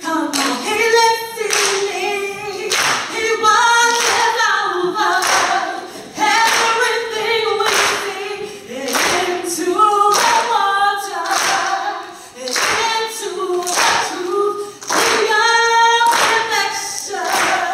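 A woman singing a gospel song without instruments, with hand clapping keeping a steady beat about once a second.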